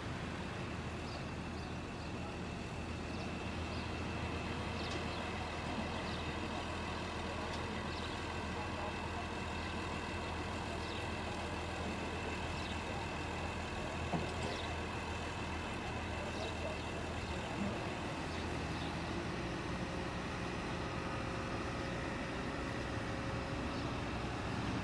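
Heavy diesel engine of a truck-mounted crane or heavy truck running steadily, with a constant low hum and a faint high whine above it.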